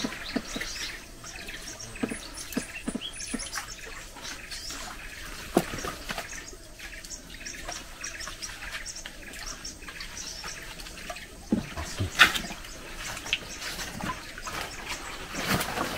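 Small splashes and drips of water in short, scattered bursts as a surface lure is worked on a bamboo pole for snakehead, with one louder splash about twelve seconds in.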